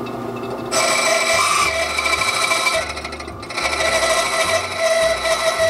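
Electric key-duplicating machine running, its cutter wheel screeching as it cuts a metal key blank while the original is traced. The hum of the motor is joined about a second in by the loud rasping screech of the cut, which eases briefly midway and then comes back.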